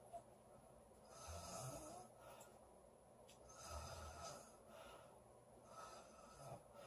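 Woman snoring in her sleep: three slow, fairly quiet breaths about two seconds apart, the first two with a low rumble.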